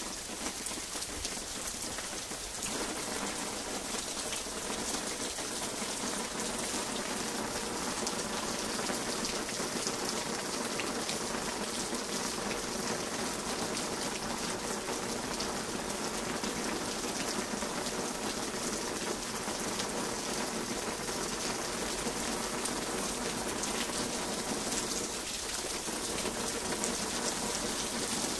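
Heavy rain falling steadily: a dense, even hiss of many small drop ticks.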